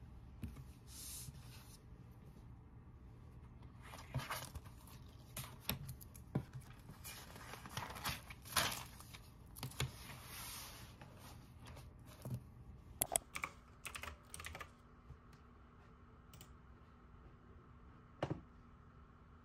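Handling sounds at a desk: notebooks and papers being picked up, shuffled and set down, with scattered clicks, taps and a few longer rustles of paper. A faint steady hum comes in about two-thirds of the way through.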